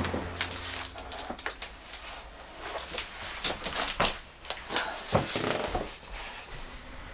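Irregular knocks, bumps and scrapes of a large wooden board being lifted and carried through a doorway, with the sharpest knock about five seconds in. The tail of background music fades out at the very start.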